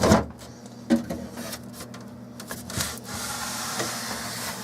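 Plastic refrigerator parts being handled: a knock at the start and another about a second in, then a steady sliding rub of plastic.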